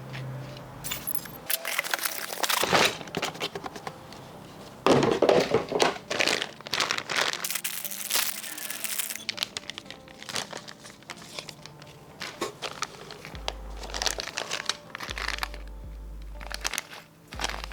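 Plastic parts bags crinkling and rustling as an RC car kit is unpacked, with small clicks and knocks of parts being handled, over background music. The loudest rustle comes about five seconds in.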